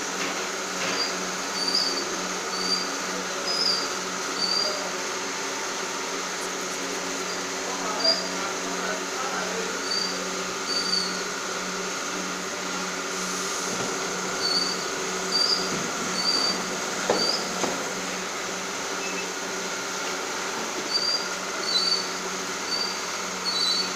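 Chin chin snack dough sheeting and cutting machine running with a steady hum. Short high chirps come now and then, in small clusters.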